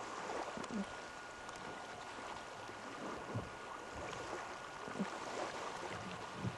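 Faint, steady outdoor hiss with a thin steady tone in it and a few soft knocks scattered through.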